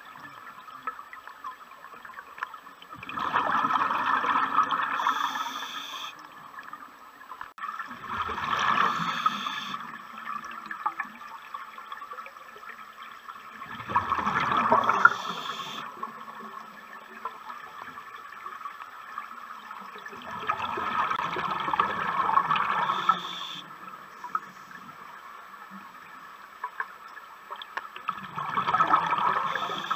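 Underwater scuba breathing: a diver's regulator venting a rush of exhaled bubbles five times, about every six seconds, each lasting two to three seconds, with quieter gaps between breaths.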